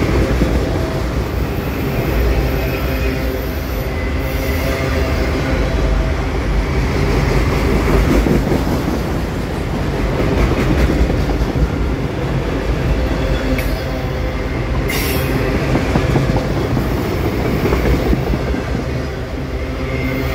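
Freight train of autorack cars rolling past at close range: a steady, loud rumble of steel wheels on rail, with a thin wheel squeal running through it.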